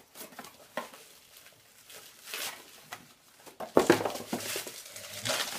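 Bubble wrap crinkling and a cardboard box being handled as a wrapped mug is unpacked. The rustling comes in bursts, loudest from about four seconds in.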